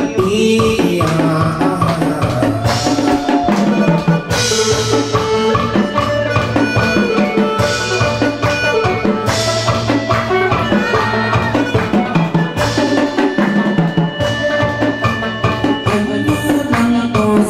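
Chầu văn ritual music played by an ensemble: drums and other percussion keeping a steady beat under pitched melody instruments, in an instrumental stretch without singing.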